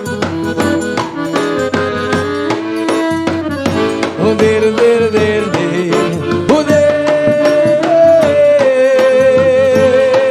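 A live forró trio plays an instrumental passage: an accordion carries the melody, ending on a long held note with vibrato, over a steady percussion beat.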